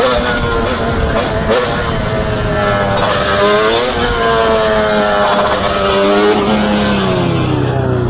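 Yamaha Banshee's twin-cylinder two-stroke engine revving hard under throttle while the quad is wheelied. Its pitch climbs to a peak about four seconds in, then falls steadily as the throttle eases.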